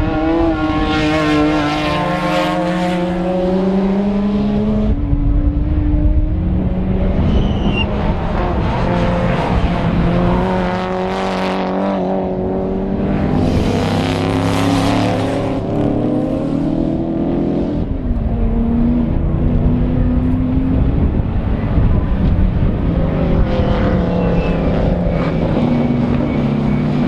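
Circuit racing cars running at speed, their engine notes climbing and dropping through gear changes as they go past, with two or more cars heard at once at times.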